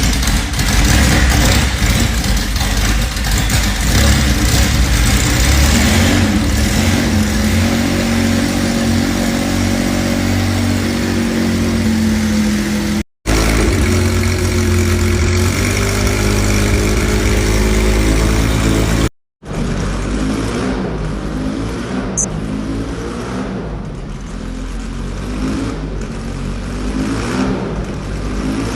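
Car engine running loud and being revved, its note climbing for several seconds in the first part. It is heard in three stretches, separated by two brief gaps of silence, with the last stretch somewhat quieter.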